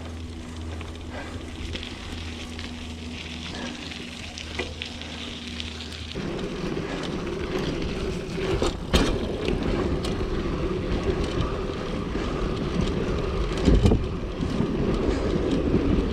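Mountain bike riding over a wet gravel and mud trail: tyre noise, rattling and knocks of the bike, and wind on the microphone. A low steady hum sits under the first six seconds, after which the rolling noise turns louder and rougher.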